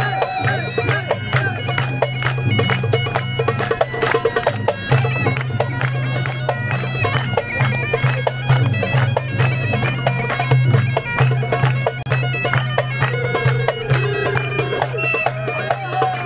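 Bagpipes playing a Palestinian folk tune over a steady low drone, with a frame drum and handclaps keeping an even rhythm.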